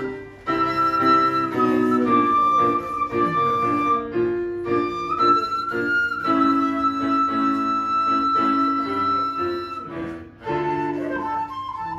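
Quena, the Andean end-blown notched flute, playing a melody of long held notes over piano chords, with short gaps in the flute line about half a second in and near the end.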